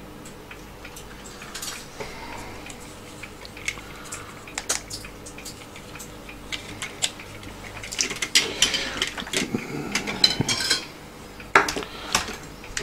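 Light metallic clicks and scraping of a small hand tool against small metal parts of a floppy drive mechanism, scattered at first, busier in the second half, with one sharp click near the end.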